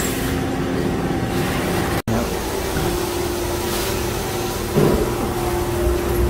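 Factory machinery running: a steady mechanical din with a constant hum. The sound cuts out for an instant about two seconds in, and a brief louder noise comes just before five seconds.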